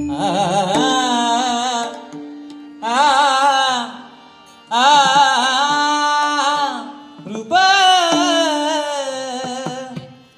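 Male bhajan singer drawing out long, ornamented vowel phrases without words, four phrases with short breaths between them, the first sliding upward. A steady drone note sustains underneath.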